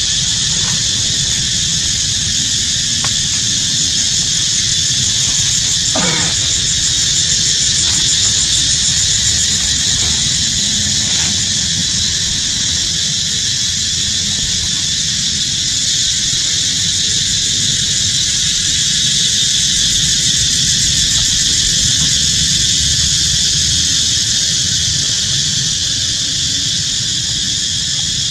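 Steady high-pitched chorus of forest insects, over a low rumble, with one short squeal falling in pitch about six seconds in.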